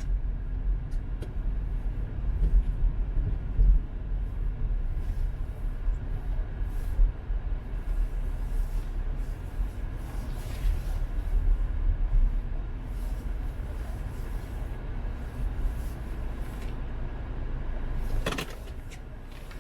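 Car cabin rumble from the engine and tyres as the car drives slowly, easing off near the end. A short clunk follows about a second and a half before the end.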